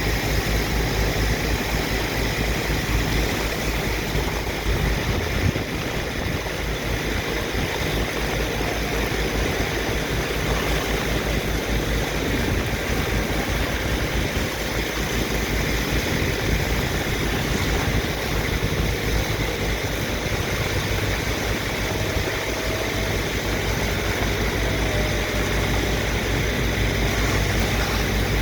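Diesel engine of a sand dredger or its water pump running steadily with a low, even throb, over a steady rush of water.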